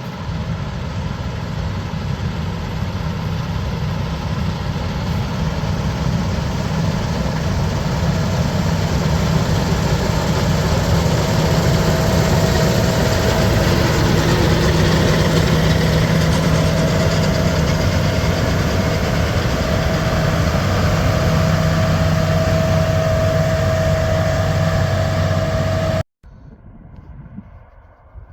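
Heavy diesel engine running steadily with a low hum and a thin steady whine over it, getting a little louder over the first dozen seconds. It cuts off abruptly near the end, leaving a much quieter background.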